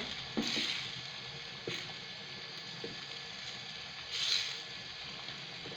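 A pot of stew on the stove sizzling with a steady hiss, with two short louder scrapes or clatters about half a second in and about four seconds in.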